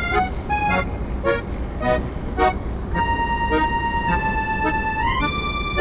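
Music: quick short notes in a steady beat, then long held notes that slide up in pitch near the end, over a low steady rumble.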